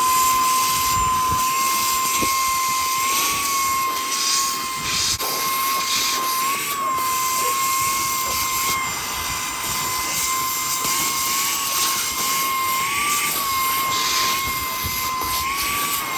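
Saker 3-in-1 handheld cordless vacuum running with its long flat suction attachment: a steady, high motor whine over rushing air, its pitch lifting briefly a few times.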